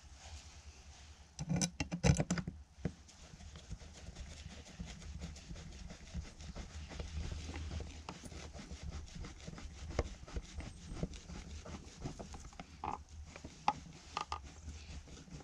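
Hand screwdriver turning screws into an outlet box: a few sharp knocks about two seconds in, then steady scratchy rubbing with small clicks as the screws are driven.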